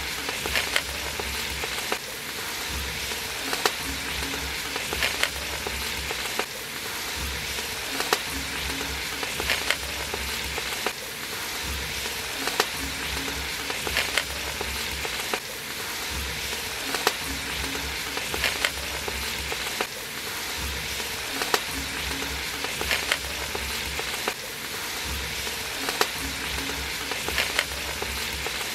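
Large aluminium pot of prawn biriyani gravy boiling over a wood fire, giving a steady sizzling hiss. A metal ladle stirs it, with a sharp click against the pot about every one and a half seconds.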